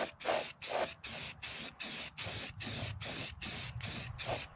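Spraying in about a dozen short, rapid bursts of hiss, roughly two and a half a second, stopping just after the end.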